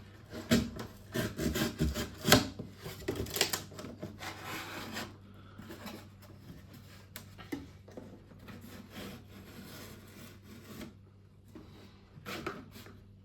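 Corrugated cardboard being cut with a knife blade and then folded. There are quick scraping strokes over the first five seconds, then quieter, scattered rustling and handling.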